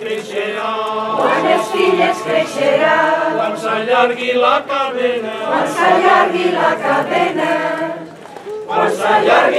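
Mixed choir of men's and women's voices singing a traditional Catalan Easter caramelles song in Catalan. The voices break off briefly near the end between phrases, then come back in.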